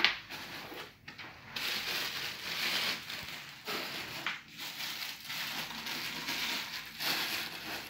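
Packaging crinkling and rustling in long stretches as it is handled, after a sharp knock at the very start.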